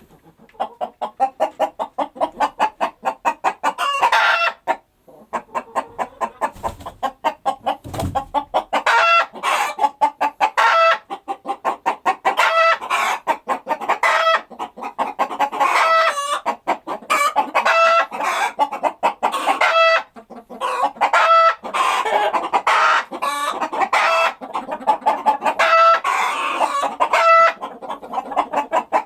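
Chickens clucking: runs of quick, short clucks, each ending in a longer drawn-out squawk, repeating every couple of seconds.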